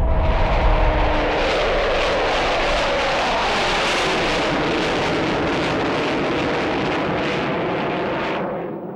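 Jet noise of an Avro Vulcan bomber's four Bristol Olympus turbojets as it flies past: a steady roar with a whine that falls in pitch over the first few seconds, fading sharply near the end. A deep rumble fills the first second.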